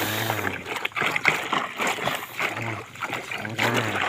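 Water splashing and trickling over toys being washed, with some pitched sounds mixed in.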